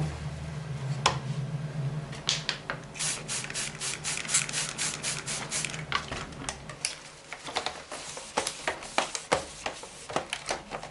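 Paper towel being rubbed back and forth along the side of a Roomba's plastic body. A quick, even run of wiping strokes comes a few seconds in, then slower, uneven ones, with a low hum underneath for the first half.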